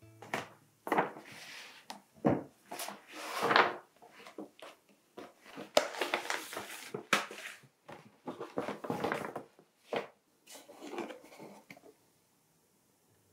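Paper shopping bag and cardboard gift box being handled and opened by hand: irregular paper rustles and crinkles that die away about a second before the end.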